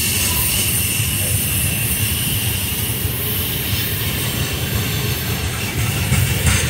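Train rolling past: a steady low rumble of wheels on rail, with a faint, steady high-pitched wheel squeal over it.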